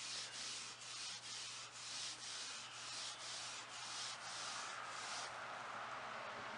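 Acetone-soaked 0000 steel wool pad rubbed back and forth over a lacquered wood buffet top, about two strokes a second, dissolving and lifting the lacquer finish. The rubbing stops about five seconds in.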